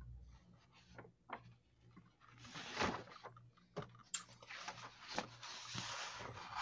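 Faint scattered clicks and knocks over an open microphone, then a steady hiss of mic background noise from about two and a half seconds in.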